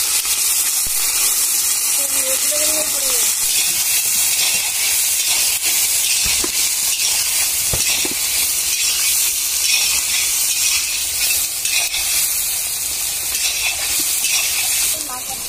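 Sliced onions frying in hot oil in a large iron kadai: a loud, steady sizzle as they are stirred with a metal spatula, with a couple of short knocks of the spatula against the pan.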